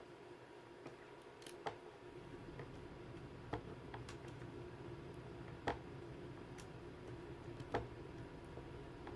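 Light, sharp clicks and taps of small phone parts being handled while a replacement display is connected to a Samsung Galaxy A3. There are four clearer clicks about two seconds apart and a few fainter ones, over a faint steady hum.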